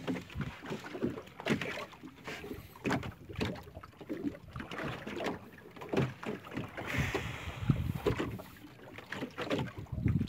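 Choppy water slapping and knocking against the hull of a small open boat in irregular bursts, with wind buffeting the microphone.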